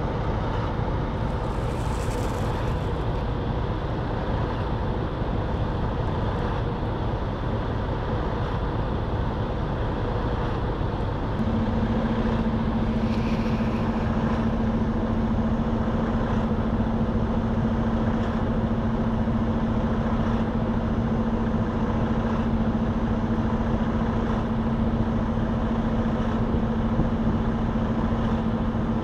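Car engine and road noise heard from inside the car, an even, steady rumble. About a third of the way in, a steady low hum starts and holds.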